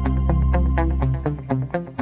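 Electronic background music: a deep held bass note under a quick, steady run of short plucked notes.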